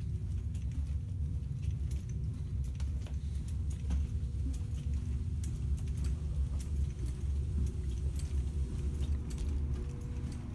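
Walking noise from a phone carried down a carpeted hallway: a continuous low rumble of handling and footfalls with scattered light clicks and jingles, over a steady faint hum.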